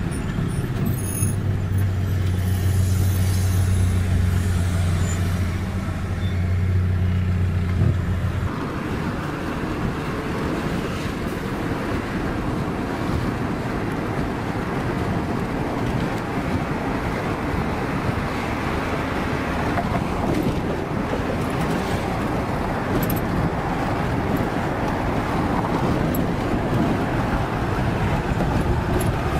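Vehicle interior noise on the move: a steady low engine drone for about the first eight seconds stops abruptly and gives way to an even rush of road and tyre noise for the rest.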